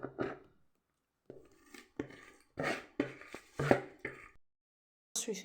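A few light knocks and scrapes of kitchen utensils and dishes, handled at a worktop.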